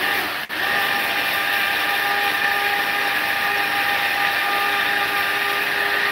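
Tiny electric food processor chopping habanero peppers, its motor running with a steady whine. It spins up at the start, cuts out for an instant about half a second in, then runs on evenly.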